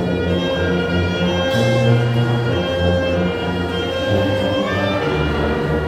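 A brass band playing a slow, sustained passage of a pop ballad medley in held chords, with one part sliding upward in pitch about four seconds in.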